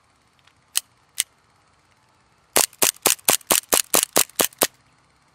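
Novritsch gas-blowback airsoft pistol fire: two single shots about half a second apart, then a rapid string of about ten shots in two seconds, roughly five a second.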